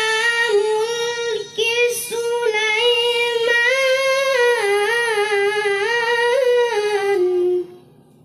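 A child's high voice reciting the Qur'an in melodic tilawah style: one long phrase with wavering ornamental turns, briefly broken about a second and a half in, sinking lower at the close and stopping about seven and a half seconds in.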